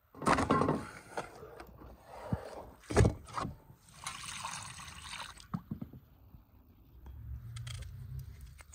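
A run of food-prep sounds: raw beef tripe being shaken and flapped, then a loud thump about three seconds in. Water pours and splashes into a metal bowl for about a second and a half, and faint knife scrapes come near the end as an onion is peeled.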